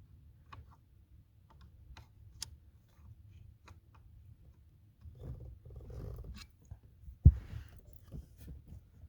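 Small metal-and-plastic clicks and rustling as parts are worked loose under a car's dashboard, with one sharp knock about seven seconds in.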